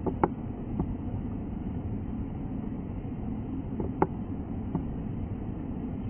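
Steady low rumbling background noise, with a few short sharp clicks: two just after the start, two around four seconds in, and single ones in between.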